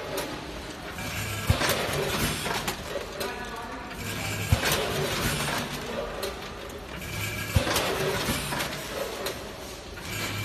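Vertical form-fill-seal packing machine bagging potato chips, cycling about every three seconds. Each cycle starts with a sharp clack as a bag is sealed and cut, then a rustling rush of chips falling into the next bag over a steady machine hum.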